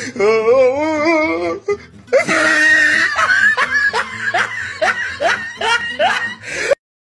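Human laughter: a warbling, wavering laugh held for about a second and a half, then a run of rapid breathy laughs about three a second. The laughter cuts off abruptly just before the end.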